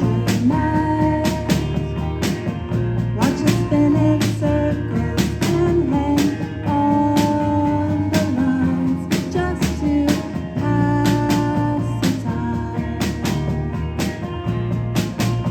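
A live band playing with guitar, bass and drums keeping a steady beat, and singing.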